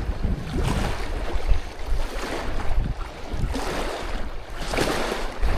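Wind gusting across the microphone outdoors, a noisy rumble that swells and eases, louder about three and a half seconds in.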